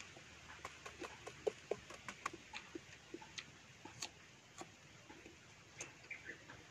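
Faint mouth sounds of someone eating mango: irregular small clicks and smacks from the lips and tongue while chewing, thickest in the first two seconds.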